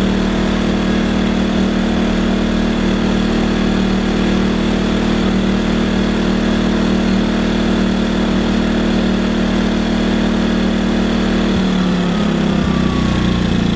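WEN 56200i inverter generator running steadily, then its engine settling to a lower speed about twelve seconds in as eco mode throttles it back to match the light load.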